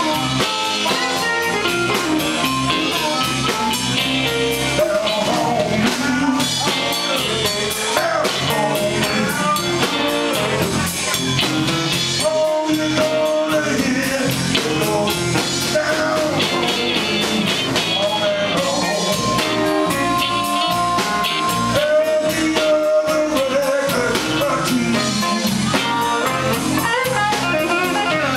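Live electric blues band playing: electric bass, drum kit, electric guitars and harmonica, with a male singer's voice.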